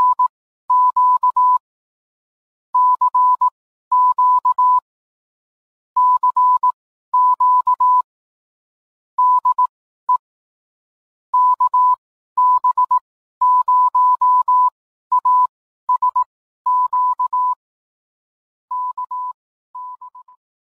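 Morse code sent as a single steady mid-pitched beep tone, keyed on and off in dots and dashes with gaps between characters, fading out near the end.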